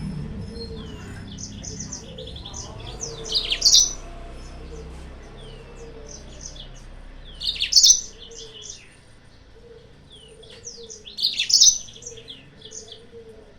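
Yellow-fronted canary (Mozambique canary) singing. Three loud bursts of fast, high song come about four seconds apart, with softer chirps between, over a faint low repeated call.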